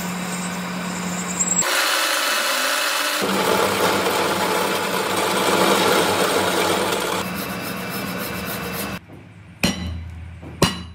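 Metal lathe cutting a steel axle end, the tool scraping over a steady motor hum, changing abruptly a few times. Near the end it drops away and two sharp metal clanks follow.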